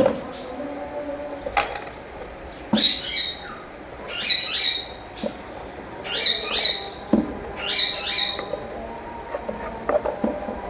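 Caged pet birds calling: short, sharp chirps that fall in pitch, coming in quick clusters of two or three about every second and a half. A few knocks sound in between.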